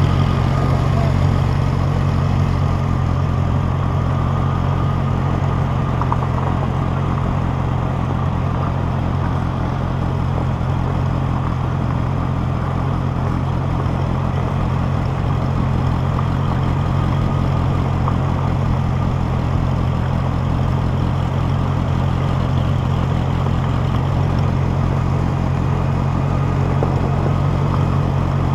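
Engine of an old tractor running steadily as the tractor drives along, an even low hum that holds one pitch.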